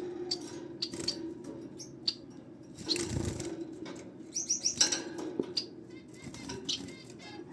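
Society finches chirping with short high calls, including a quick run of notes a little past the middle, mixed with brief bursts of fluttering and rustling. A steady low hum runs underneath.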